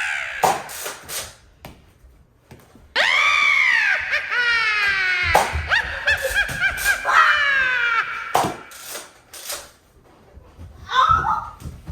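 High-pitched shrieking and squealing laughter, in long gliding, falling squeals from about three seconds in until near nine seconds, with a few sharp clicks or knocks around it.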